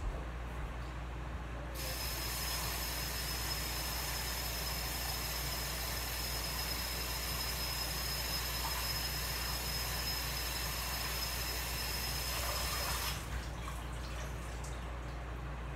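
Kitchen sink faucet running in a steady stream with a faint whistle, turned on about two seconds in and shut off abruptly a couple of seconds before the end.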